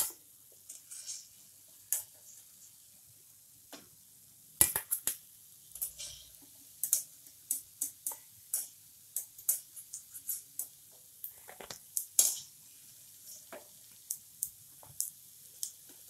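A wire-mesh frying skimmer scrapes and clinks against a steel kadhai as fried pieces are scooped and drained out of hot oil, over a faint sizzle of the oil. The clinks come irregularly, roughly one or two a second, with a few louder knocks.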